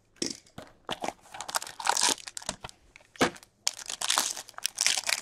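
Foil wrapper of a hockey card pack being torn open and crumpled by hand: irregular crinkling and tearing.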